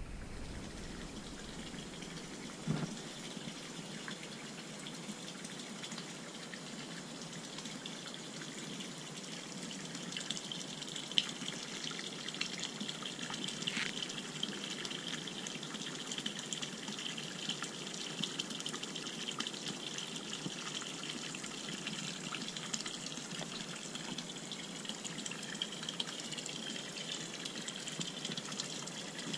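Water pouring from a pipe into a small pond, a steady splashing trickle on the surface, with a few faint clicks.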